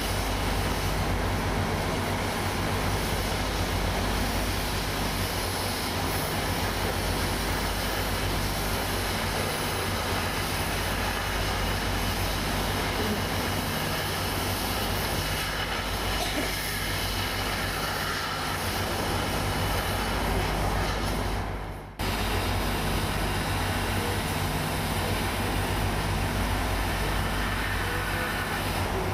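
Steady hiss of a cutting torch burning through the metal lattice girders of a Victorian railway bridge, over a constant engine drone. The sound drops out for an instant about three-quarters of the way through.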